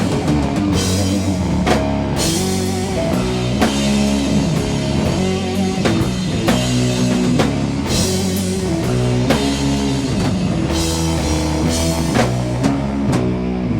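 Doom metal band playing an instrumental passage between vocal lines: heavy distorted electric guitars, bass and a drum kit at a steady slow beat.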